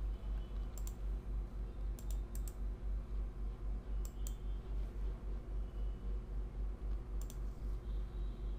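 Computer mouse clicks: a handful of separate clicks, some in quick pairs, over a faint low hum that pulses a few times a second.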